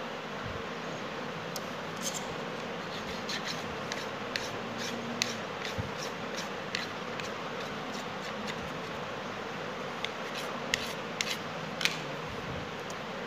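Scattered light clicks and taps as thin white strips are handled and pressed together by hand to join a small frame, over a steady background hiss. The sharpest clicks come in a cluster between about ten and twelve seconds in.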